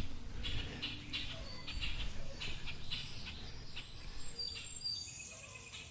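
Birds chirping in short, high notes, over rustling and scraping from a barefoot climber moving against tree bark, with a low rumble of handling noise from a head-mounted camera that fades after the first couple of seconds.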